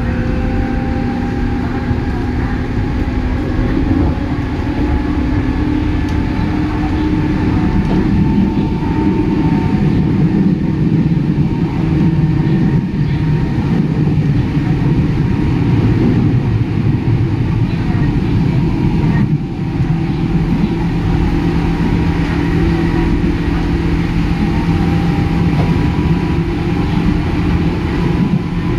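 103 series electric train running at speed, heard from inside the car: a steady rumble of wheels on rail with the hum of the traction motors and gearing, its pitch drifting slowly. There is a brief dip in the sound about two-thirds of the way through.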